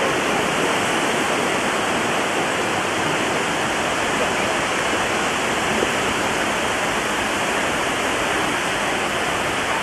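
Steady rushing noise of surf and wind at the beach, unbroken throughout.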